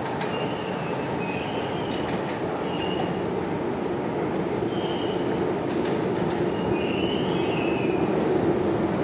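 New York City subway train running through the tunnel, a steady rumble with repeated short, high wheel squeals, growing a little louder toward the end.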